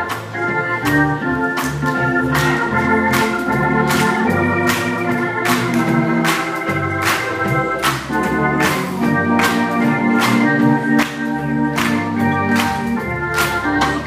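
Church organ playing sustained gospel chords over a moving bass line, with a steady beat of sharp hits just under two a second.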